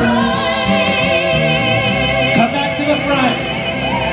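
Country-gospel polka song playing, a woman singer holding one long note with a steady vibrato over the band, with the accompaniment changing about two and a half seconds in.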